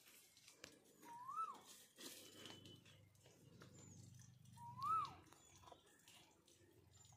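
A bird calling twice, the same clear whistled note each time, rising then falling, about three and a half seconds apart.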